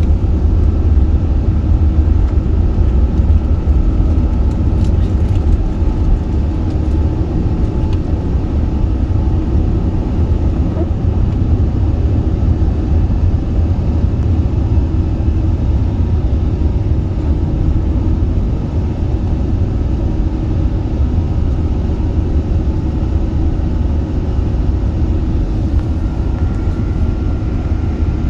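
Steady low rumble of an Airbus A380 heard from inside the cabin: engine and airflow noise, with a few faint steady tones above it.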